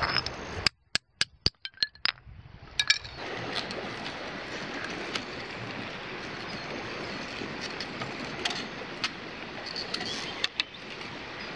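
Small metallic clinks and ticks from galvanised tie wire being bent and twisted around a wooden stick, over a steady background rush. In the first two seconds the rush drops out for a moment and a quick run of about seven sharp clicks is heard.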